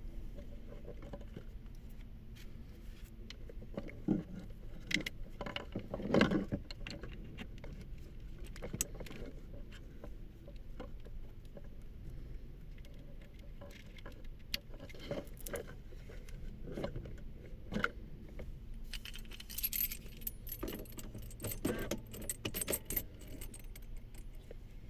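Keys jangling, with scattered clicks and knocks of handling and a denser rattle late on, over a low steady hum.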